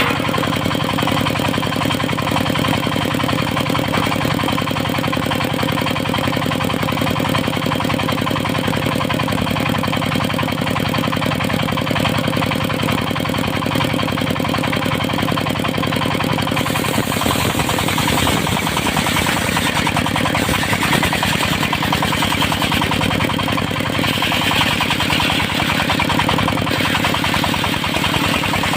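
Engine-driven circular sawmill running steadily while sawing teak for house beams, its engine drone steady throughout. About two-thirds of the way in the sound turns brighter and harsher, and stays that way.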